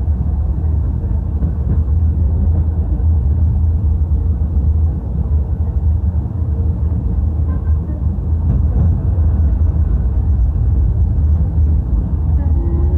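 Steady low rumble of a Blackpool tram running along its track, heard from inside the car.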